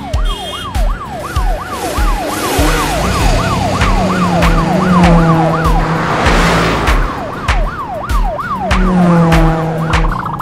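Police siren sound effect, a fast yelping wail that sweeps up and down over and over, over background music with a steady beat. A whooshing rush swells up about six seconds in.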